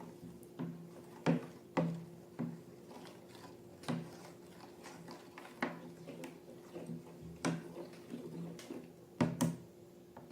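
Slime being handled and worked: irregular soft clicks, taps and sticky squishes, roughly one a second, with a few louder ones near the start and end, over a steady low hum.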